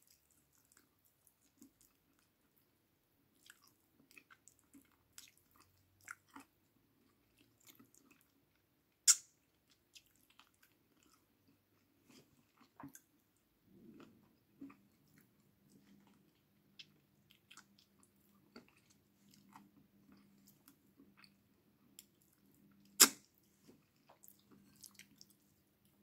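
Close-up chewing and wet mouth sounds of a person eating chicken afritada and rice by hand: soft smacks and small clicks, with finger-licking. Two sharp clicks, one about 9 s in and one near the end, are the loudest sounds.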